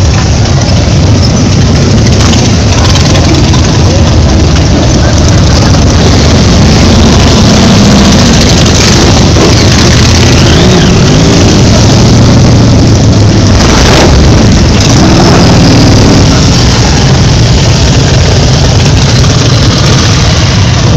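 Motorcycles, many of them Harley-Davidson V-twins, riding past close by one after another, engines loud and steady with a few revs. There is a sharp crack about two-thirds of the way through.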